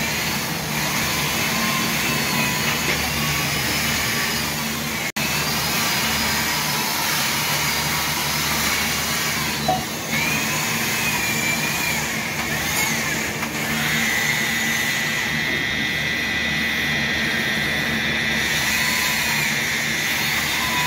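Sunnen cylinder honing machine running, its spindle turning a hone inside an air-cooled motorcycle cylinder barrel that is stroked back and forth by hand: a steady motor hum with a high whine that wavers up and down. The sound drops out for an instant about five seconds in.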